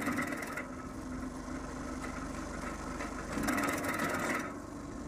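Small tractor's engine steadily driving a homemade shaft-driven branch chipper. Right at the start, and again about three and a half seconds in for about a second, the chipper's blades chew through a branch with a rapid clattering.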